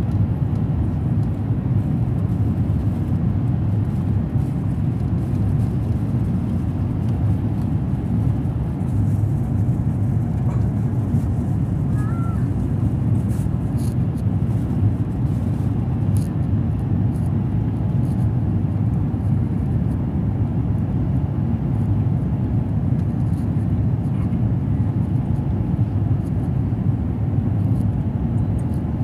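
Steady low rumble of an Airbus A350's jet engines and rushing air inside the passenger cabin during the climb after takeoff, with a few faint clicks in the middle.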